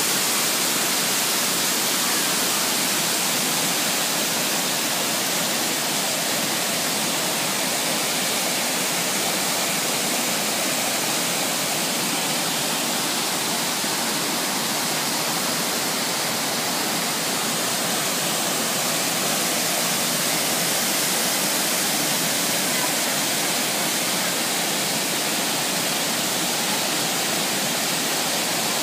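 A waterfall swollen with rain, pouring heavily: a steady, unbroken rush of falling water that holds an even level throughout.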